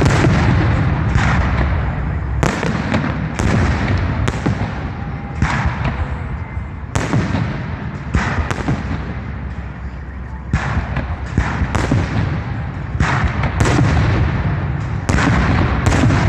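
Fireworks display: an irregular string of loud bangs, about one a second, as shells burst, over a continuous low rumble and crackle from the bursts before them.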